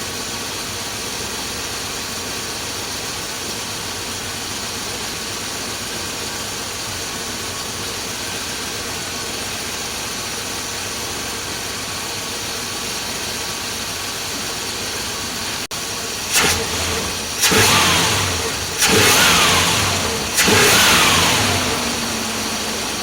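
Chrysler 360 V8 idling steadily, then revved with four quick stabs of the throttle, each picking up sharply and easing back to idle. The engine takes the throttle without the low-rpm hesitation, which advancing the distributor about a quarter turn cured.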